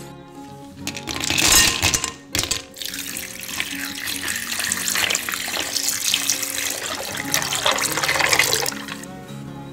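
Cold water poured in a thin stream onto ice cubes in a glass bowl, splashing as the bowl fills. The pour starts about a second in, breaks off briefly, and stops shortly before the end. Acoustic guitar music plays underneath.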